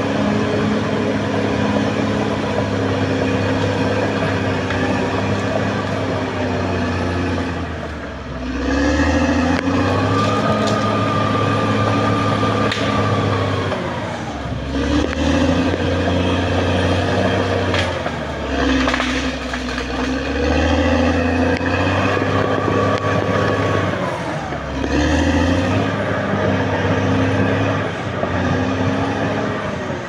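Caterpillar D6R XL bulldozer's diesel engine running hard, its pitch dropping and climbing again several times as the load and throttle change. A high whine rises and holds for a few seconds, twice.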